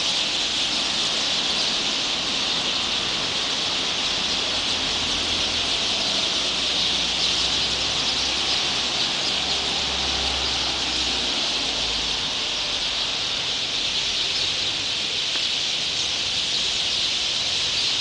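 A large flock of small birds chattering and calling all at once in the treetops, a dense, steady din: the noisy gathering of birds settling in to roost at dusk.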